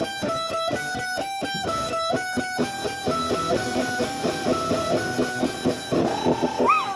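Rock-and-roll electric guitar solo: quick repeated picked notes moving through a melody line, with a few bent notes near the end.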